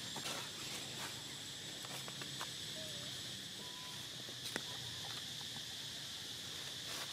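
Insects chirring in a steady high drone, with a few faint clicks and rustles from the ground, the sharpest about four and a half seconds in.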